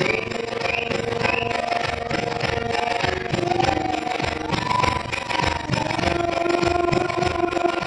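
Devotional bhajan music with singing over steady held tones and a rhythmic beat.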